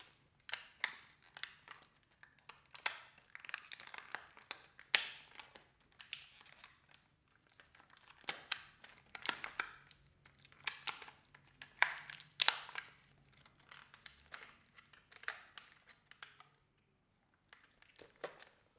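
Packaging around a stick of soft pastel being crinkled and torn open by hand: a long run of irregular crackles and rips, with a short lull near the end.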